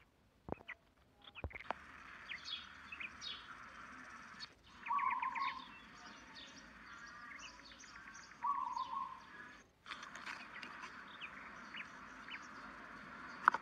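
Small birds chirping repeatedly outdoors, with a few sharp clicks of slime being squeezed in the hands in the first two seconds.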